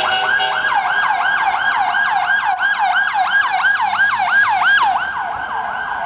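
Ambulance siren in a fast yelp, its pitch sweeping down from high to low about three times a second, loud as the ambulance passes close by, and easing slightly near the end.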